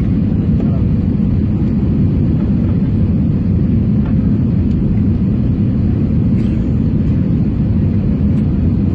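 Steady low rumble of a jet airliner heard from inside the cabin, engines and airflow noise, as the plane descends on approach to land.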